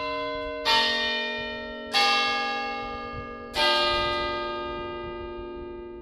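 Tower bells ringing a slow sequence of different notes. A new bell is struck about a second in, again at two seconds and again past three and a half seconds, each ringing on and fading under the next.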